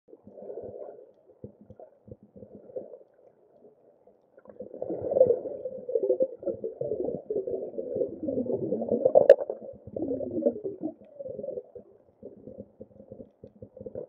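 Muffled underwater gurgling and bubbling of water heard through a camera's waterproof housing, in patches at first, then denser and louder for several seconds before thinning out again. One sharp click near the middle.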